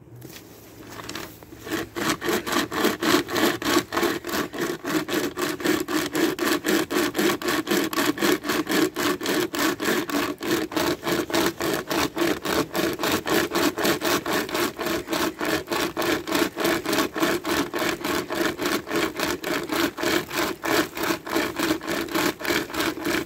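Pocket chainsaw, a toothed cutting chain with paracord handles, pulled back and forth through a log. It rasps in an even rhythm of about three strokes a second, starting about a second and a half in.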